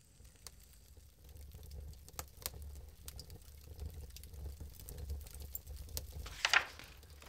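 Kindling and wood shavings crackling and popping as a fire catches in a wood stove, scattered sharp clicks over a low rumble that builds about a second in. A short louder rush comes near the end.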